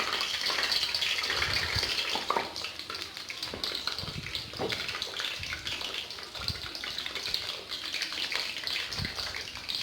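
Leftover-rice bondas deep-frying in hot oil in a kadai: a steady sizzling hiss, with a few low knocks scattered through it.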